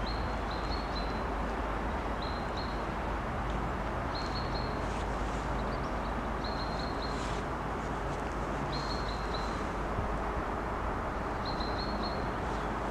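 A songbird repeats a short phrase of a few high notes about every two seconds over a steady low rumble from a distant, approaching 2M62 twin-section diesel locomotive.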